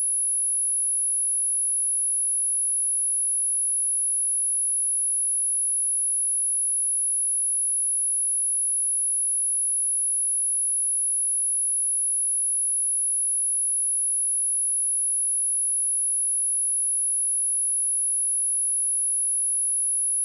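A steady, unbroken 10547 Hz sine-wave test tone: a single high-pitched whistle held at constant pitch and level, as used to test speakers and to shake water and dust out of them.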